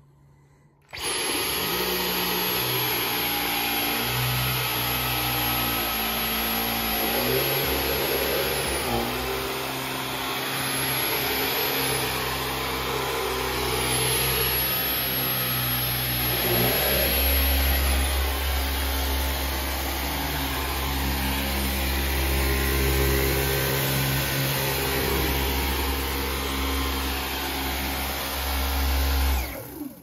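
Dyson V15 Detect cordless stick vacuum with the High Torque cleaner head running over a rug: a steady motor whine that starts about a second in, shifts in pitch a few times, and cuts off just before the end.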